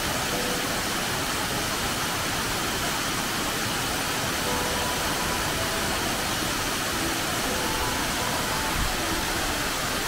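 Waterfall cascading over a tiered rock face onto a rock slab: a steady, unbroken rush of falling and splashing water.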